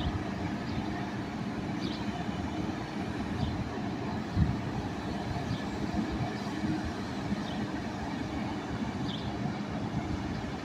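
Freightliner concrete pump truck running, a steady low engine drone with a faint short click every second or two.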